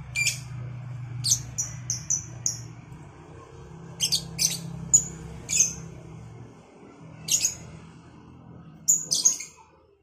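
Caged lovebirds calling with sharp, high chirps and short squawks in quick clusters, about six bursts in all, the loudest around the middle and near the end. A low steady hum runs underneath and stops just before the end.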